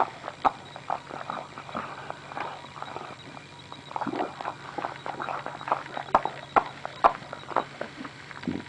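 A mother dog licking a newborn puppy to stimulate it, a quick irregular run of short licking strokes with a few sharper clicks among them.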